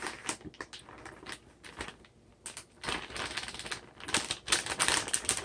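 Plastic pouch of shredded cheese crinkling and crackling as it is squeezed and shaken out: irregular crackles, sparser around the middle and busier in the second half.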